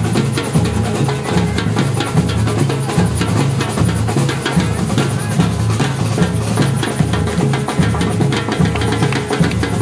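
Music with drums and percussion playing a steady, driving beat.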